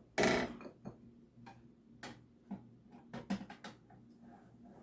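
Kitchenware being handled: a short clatter just after the start, then scattered light clicks and taps.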